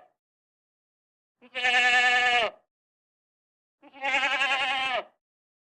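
Domestic goat bleating twice, each call about a second long and dropping in pitch at the end, the second with a quavering waver.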